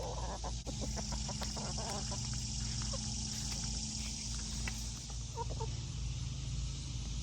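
Backyard chickens clucking: a quick run of short clucks in the first two seconds, then a brief two-note call about five seconds in, over a steady high hiss.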